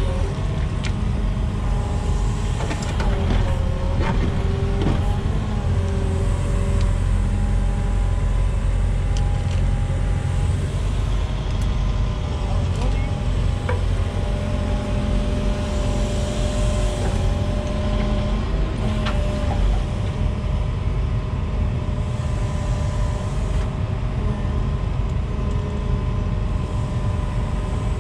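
Volvo EWR 150E wheeled excavator's diesel engine running steadily under working load, with the hydraulics whining at pitches that shift as the machine moves. A few sharp knocks a few seconds in.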